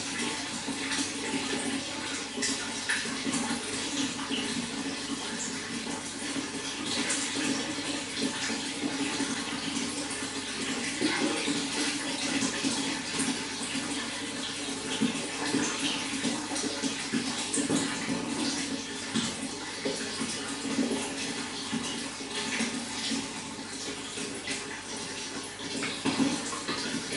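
Running water flowing steadily, with many small irregular splashes over a continuous rush.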